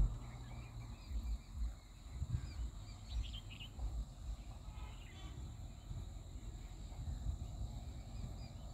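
Quiet hillside ambience: a steady high drone of insects with a few faint bird chirps about three and five seconds in, over a low, uneven rumble.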